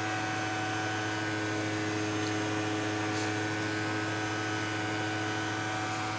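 Steady electrical hum holding several fixed pitches without change.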